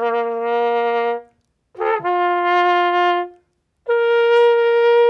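Trumpet playing three separate held notes, each higher than the one before, the second starting with a slight scoop up into pitch. The third note, the highest and longest, begins about four seconds in and matches the Rubens tube's resonance, setting up standing waves.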